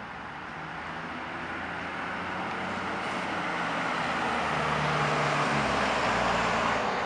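A pickup truck passing close by in road traffic: tyre and engine noise with a low engine hum swells steadily, loudest about five to six seconds in as it goes by, then eases slightly.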